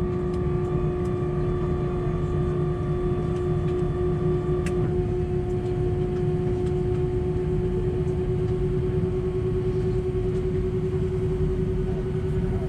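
Steady cabin noise inside an Airbus A319: a low rumble with a steady hum over it. A higher whine cuts off with a click about five seconds in.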